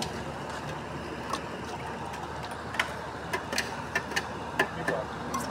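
A string of light, sharp clicks and taps from a golgappa vendor's hands working among steel pots, bowls and crisp puris, mostly in the second half, over a steady background hum of street noise.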